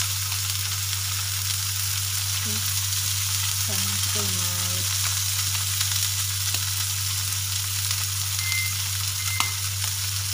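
Salmon steak frying in oil in a nonstick pan: a steady sizzle, with a couple of small ticks in the second half.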